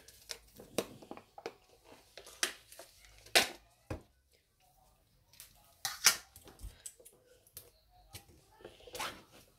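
Plastic packaging and a yogurt pot being handled and opened by hand: scattered clicks and crinkly rustles with a few sharper taps, as the foil lid is peeled back.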